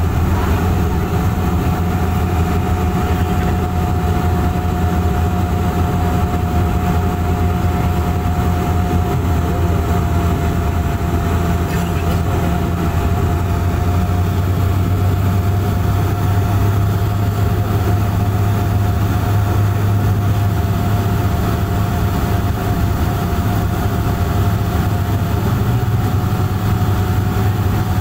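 Cabin noise of a turboprop airliner on approach with its landing gear down: a loud, steady propeller-and-engine drone with a constant thin whine above it and airflow rushing past the fuselage.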